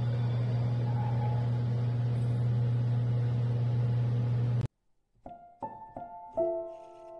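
A steady low hum with a faint hiss runs for about four and a half seconds and cuts off abruptly. About half a second later, soft piano notes begin, struck one by one and left ringing.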